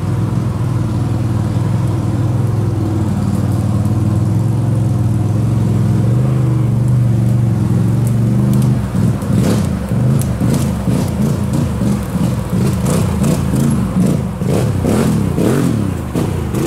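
ATV engine running at a steady speed. From about halfway it revs up and down again and again, with scattered knocks mixed in.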